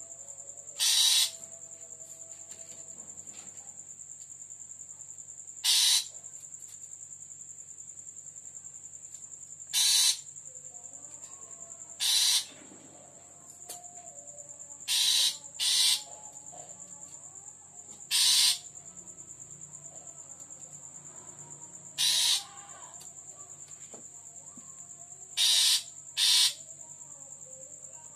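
Long-tailed shrike (bandangan) giving short, harsh, grating calls, about ten in all, spaced a few seconds apart with two quick doubles. Under them runs a steady high-pitched cricket trill.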